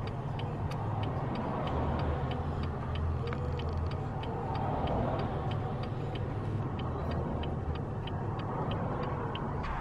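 Steady low rumble of a road vehicle, with light, regular ticking about two and a half times a second.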